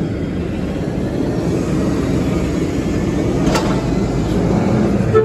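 Autocar front-loader garbage truck with an Amrep body, its engine running in a steady low rumble as it drives slowly past close by, growing slightly louder. A short hiss sounds about three and a half seconds in.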